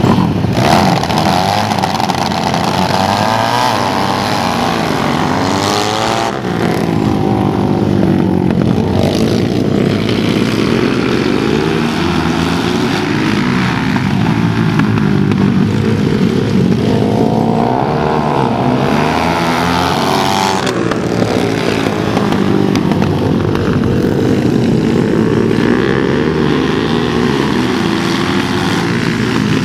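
Several flat track motorcycles racing around a small dirt oval. Their engines rev up and back off again and again, the overlapping notes rising and falling in pitch.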